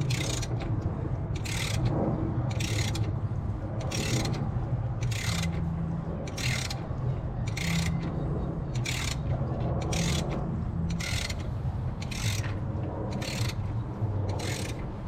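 Ratchet wrench turning the engine over by hand, its pawl clicking in a short burst on each return stroke, about every second and a quarter, over a steady low hum. The engine is being rotated slowly, plugs out, to listen for a suspected knock at the upper timing chain.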